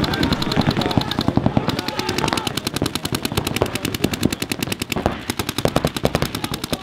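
Electronic paintball markers firing in rapid, continuous strings of about ten shots a second.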